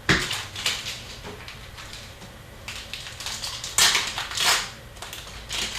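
Rustling and crinkling of hockey card pack wrappers and card handling in several short bursts, the loudest about four seconds in.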